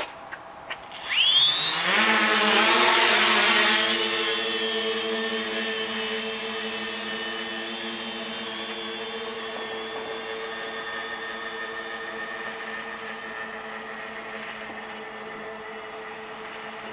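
Tricopter's electric motors and propellers spooling up with a rising whine about a second in, then a steady buzzing drone as it lifts off and flies, growing gradually quieter.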